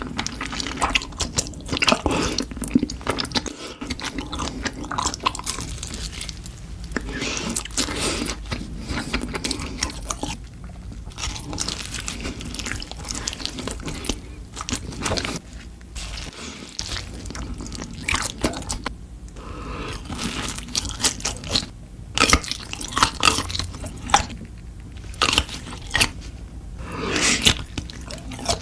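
Close-up eating sounds: crunchy bites and chewing, with crisp crackles in irregular clusters and slurping between them.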